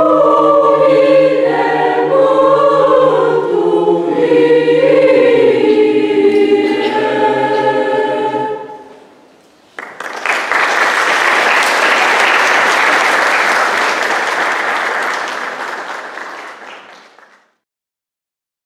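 Mixed choir singing unaccompanied, holding a final chord that ends about nine seconds in. After a short pause, audience applause starts and fades away.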